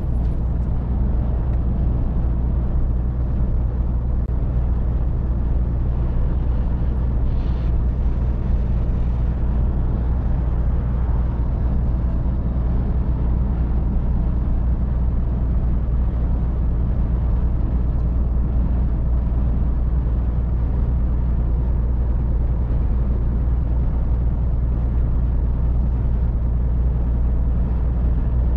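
Scania R450 truck's inline-six diesel engine running steadily at motorway cruising speed, a constant low drone heard inside the cab along with tyre and road noise.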